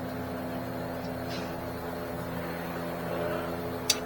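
Steady mechanical drone of a running motor, holding an even pitch, with one sharp click near the end.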